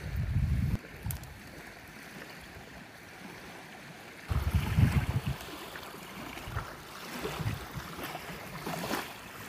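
Wind buffeting the microphone in gusts, in the first second and again about four seconds in, over a steady wash of small waves on a beach.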